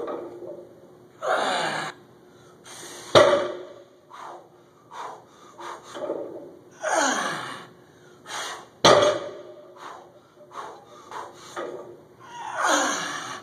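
A lifter's forceful, strained exhalations falling in pitch, three times, as he pulls a 405 lb barbell deadlift, with sharp breaths between reps. Twice the loaded bar's weight plates land hard on the floor.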